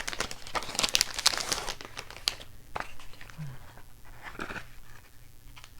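Packaging being crinkled and rustled by hand as a package is opened, in quick irregular crackles that are busiest in the first couple of seconds and then thin out.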